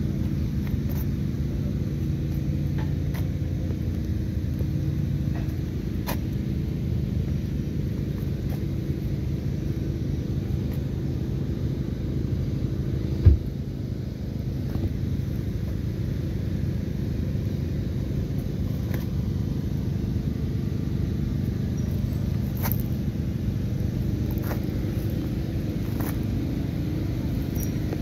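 Volkswagen Jetta four-cylinder engine idling steadily, with a single thump about thirteen seconds in.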